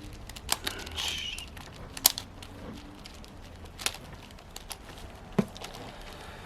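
Plastic clicks and clacks of a 6x6 Rubik's cube's layers being turned by hand, irregular, with sharper clacks about half a second, two, four and five and a half seconds in and a brief scraping rattle about a second in.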